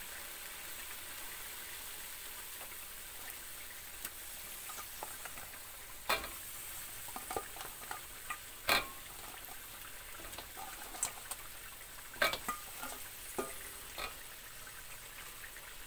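Ground chilli spice paste frying with a steady sizzle in a metal wok as fried chicken pieces are added and stirred in. A metal spatula scrapes and clinks against the pan now and then, the sharpest knocks about six, nine, twelve and fourteen seconds in.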